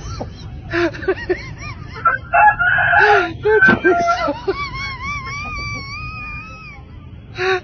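A rooster crowing: a long drawn-out crow ending in a wavering held note lasting a couple of seconds. Short voice-like calls come before it.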